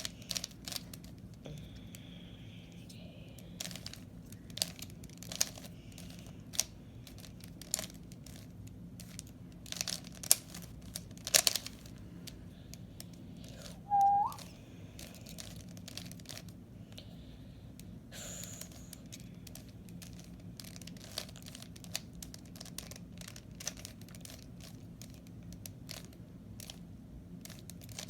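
Plastic Rubik's Cube being turned by hand, its faces giving off irregular clicks and rattles. About halfway through there is one short rising whistle-like squeak, the loudest sound in the stretch. A steady low hum lies underneath.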